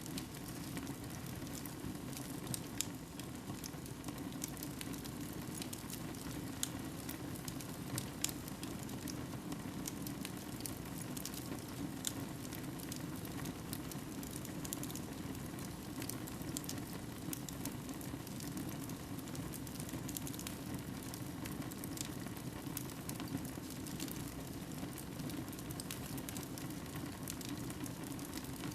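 Wood fire burning in a fireplace, crackling with frequent small snaps and a few louder pops over a steady low rush.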